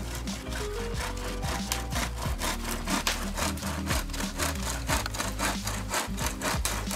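Hand saw cutting through a thin tree trunk in fast, even strokes, about four a second, with faint background music underneath.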